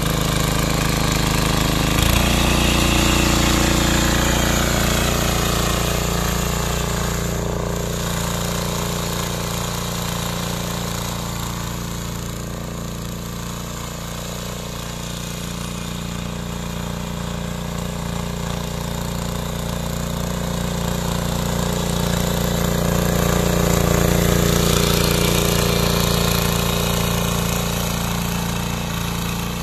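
A 7 hp mini power tiller's small engine running steadily under load as its tines churn the soil, with a rattling edge. It grows fainter as the tiller moves away toward the middle, then louder again as it comes back near the end.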